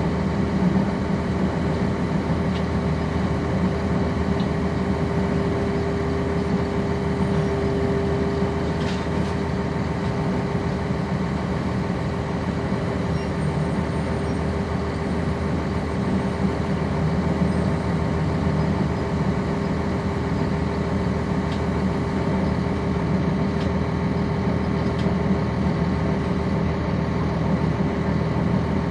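The Cummins ISC diesel engine of a 1999 NovaBus RTS transit bus, heard from inside the bus, running steadily with a steady whine over the engine noise.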